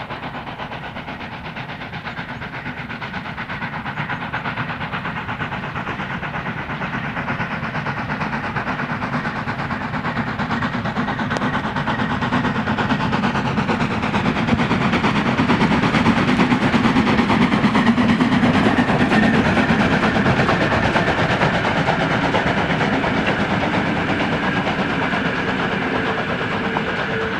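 Steam locomotive hauling a passenger train, working under steam as it draws closer and passes. It grows steadily louder to its loudest about two-thirds of the way through, then eases slightly.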